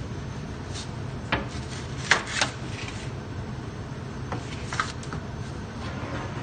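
Bread loaves being handled on a hot oven deck: a few short scrapes and knocks, the sharpest about two seconds in, over a steady low hum.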